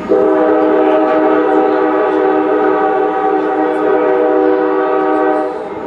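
Train horn sounding one long blast, a steady chord of several tones, that cuts off near the end.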